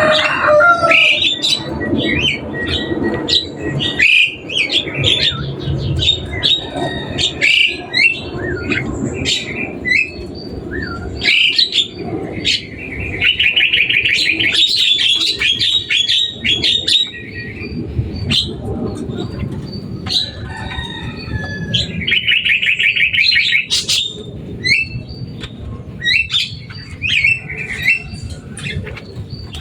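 Javan myna calling noisily: a busy string of harsh squawks, short whistles and clicks, broken twice by long, fast rattling trills.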